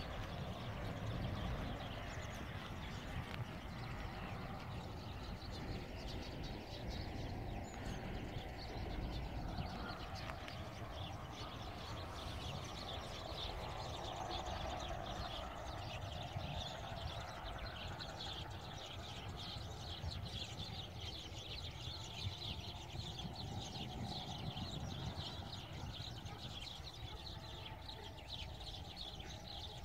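Faint outdoor ambience: small birds chirping in quick, busy runs, thicker in the second half, over a low steady rumble that eases slightly toward the end.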